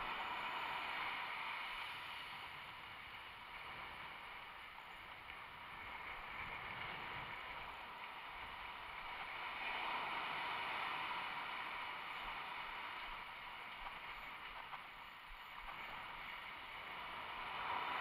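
Ocean surf breaking and washing up a sand beach: a steady rushing noise that swells with each wave, loudest at the start, about ten seconds in, and again near the end.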